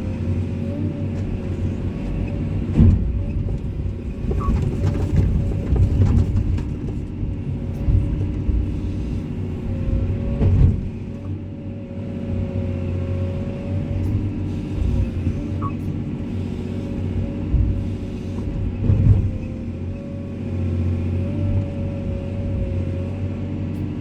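Komatsu excavator's diesel engine running under steady load, with a wavering whine over the engine note and occasional thumps as it works.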